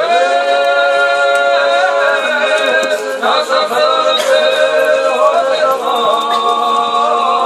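A group of children singing together in long held notes, sliding up into the first note and moving to a new pitch every couple of seconds.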